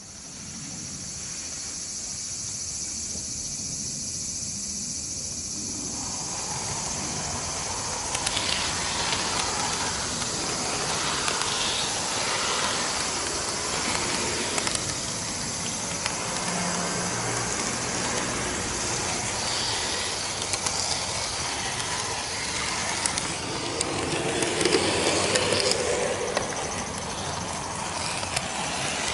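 N-gauge model train running along outdoor track, heard from a camera riding on it: a steady whirring hiss from the small motor and wheels. It starts quietly and fills out into a fuller running noise after about six seconds, with scattered clicks.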